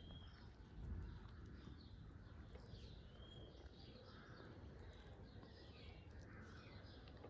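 Faint birdsong: scattered short chirps and whistles over a low background rumble.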